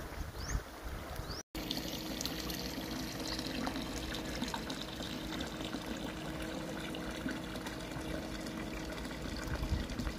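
Water pouring from a pipe into a fish pond, a steady splashing trickle, with light rain falling on the water. The sound cuts out completely for a moment about a second and a half in.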